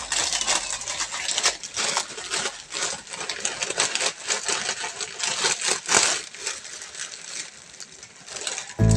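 Pan of broth with vegetables and pork boiling, a steady dense crackle of small pops and bubbles that eases off a little near the end.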